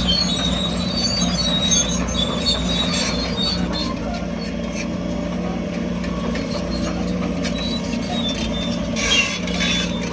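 Crawler bulldozer working, its diesel engine running steadily, with high squeals from the steel tracks that come thickest in the first few seconds and again about nine seconds in.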